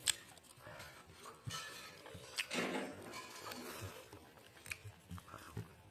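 Eating sounds: soft chewing with scattered sharp clicks of utensils or dishes.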